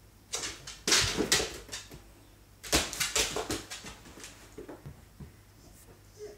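Scuffling and thumps from a Siamese kitten and a rottweiler playing, their paws scrabbling over a wooden floor and a leather pouf. The sounds come in two quick flurries, then a few lighter knocks.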